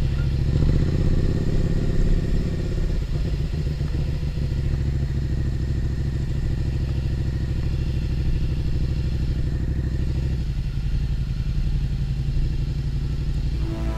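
Motorcycle engine running steadily while it is ridden at low speed. It is a little louder in the first couple of seconds and eases off about ten seconds in.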